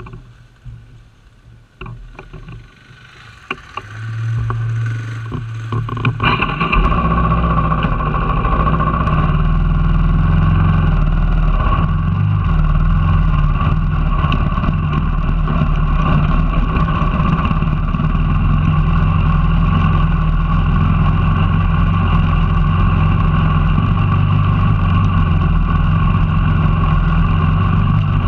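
Off-road motorcycle engine heard from the bike itself. For the first few seconds there are only a few clicks, then a steady low idle sets in. About six seconds in the engine picks up and keeps running at a steady note as the bike rides along a rutted dirt track.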